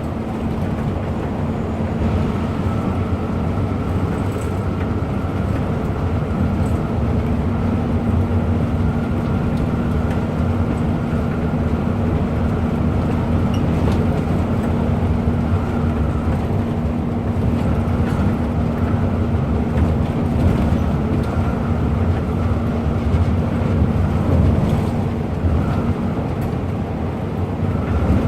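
Intercity bus driving at a steady pace: continuous engine drone with a steady hum and dense road noise, no gear changes or horn.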